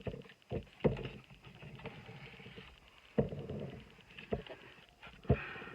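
Cardboard box tray being handled: several sharp knocks and taps, three louder ones about a second in, past the middle and near the end, with faint scraping and rustling of cardboard and paper between them.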